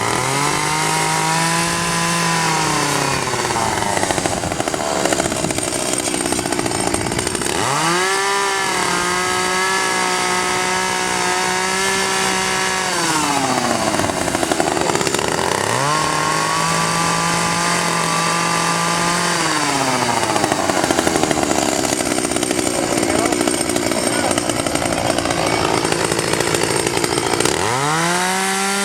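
Two-stroke chainsaw revved up to full throttle four times, holding a steady high pitch for several seconds each time before the revs drop, with rougher stretches between, likely the chain working in the wood.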